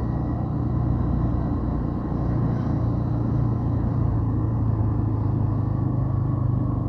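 Motorcycle engine running steadily at low road speed, heard from the rider's seat, with an even low hum and road noise.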